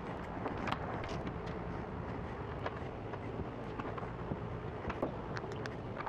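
Scattered light clicks and taps of small metal hardware being handled, over a steady low rumble.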